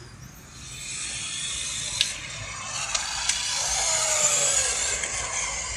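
HSP 1/10-scale off-road RC buggies running on concrete: a high mechanical whirr of motors and drivetrains with tyres scraping, loudest about four seconds in. A couple of sharp clicks are heard in the middle.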